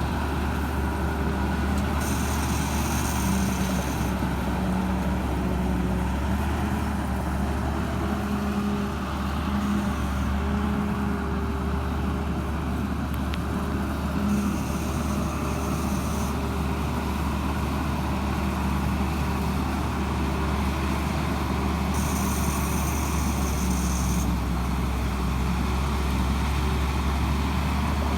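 Hino J08C diesel engine of a TAMCO Pro S9000 combine harvester running steadily with a deep, even hum. A higher hiss comes in briefly three times.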